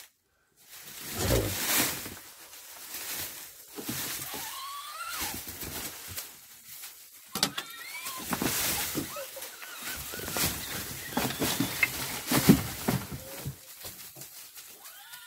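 Freshly slaughtered Damascus (Shami) billy goat in its death throes: dry straw rustling and crunching in irregular bursts as it kicks, with wet, wavering breath sounds from its cut throat.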